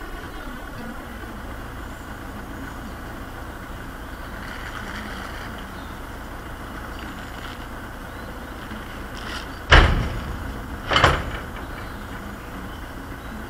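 Steady low outdoor rumble with two loud thuds about a second apart near the end.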